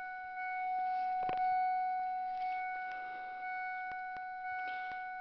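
Car's electronic warning buzzer sounding one steady high tone right through, with a few faint clicks, while the key is turned to start the engine in the cold.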